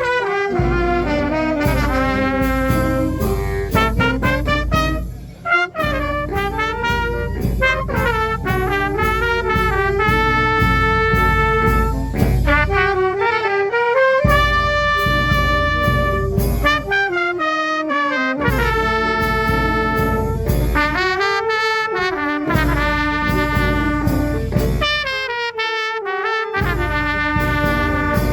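Fanfare band playing a tune: trumpets and trombones holding and changing notes over a pulsing drum beat, with a brief break about five seconds in.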